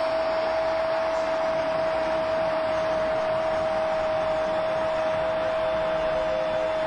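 Spanish-language football commentator holding a long goal cry on one steady pitch over a stadium crowd cheering.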